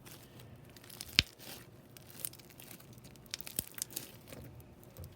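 Slime full of foam packing peanuts being worked by hand, giving off irregular crinkling and crackling clicks, with one sharp pop about a second in.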